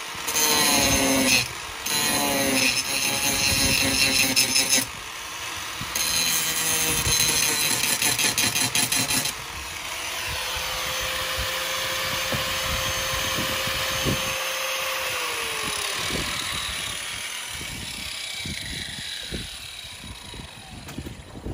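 Angle grinder cutting off the rivets that hold the old visor and mirror brackets on a truck cab, in two loud stretches of cutting. It then runs on more quietly, its steady tone falling as it winds down about two-thirds of the way through.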